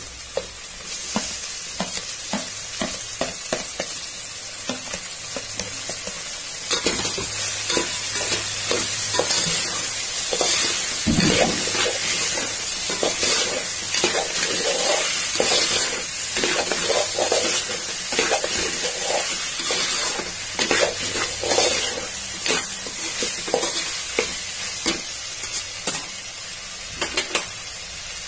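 Chopped tomatoes and green peas sizzling as they fry in hot oil in a metal pot, with a metal ladle scraping and clicking against the pot as they are stirred. One heavier knock of the ladle about halfway through.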